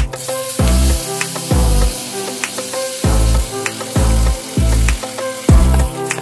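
Marinated meat sizzling as it goes into hot margarine in a wok, a steady frying hiss that is strongest in the first second. Background music with a deep, regular bass beat about twice a second runs over it.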